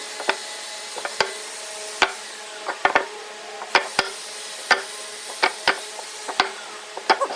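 A series of sharp knocks from hand work in a woodworking shop, about a dozen at an uneven pace of roughly two a second, each with a short ring.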